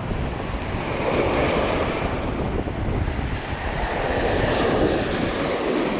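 Small sea waves breaking and washing over a pebble beach in a steady rush, with wind buffeting the microphone.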